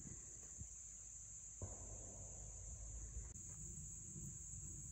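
Faint, steady, high-pitched insect chorus droning without a break, over a low rumble, with a soft knock about one and a half seconds in.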